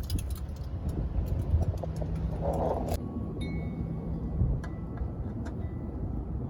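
Light metallic clinks and taps from handling the oil drain plug and wrench under the car, over a low steady rumble.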